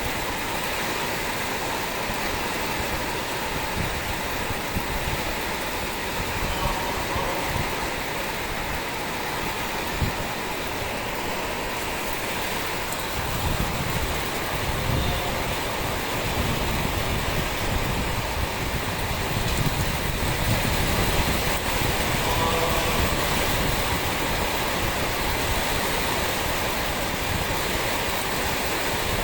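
Heavy rain pouring down in a steady, dense hiss. About halfway through, a low rumble joins it and the sound grows a little louder.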